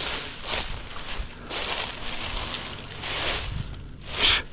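Footsteps crunching and rustling through dry fallen leaves and brush, in uneven bursts about a second apart, with a sharper, louder crunch near the end.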